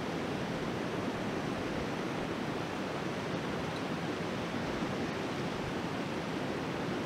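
Steady rushing noise of two portable gas camping stove burners running.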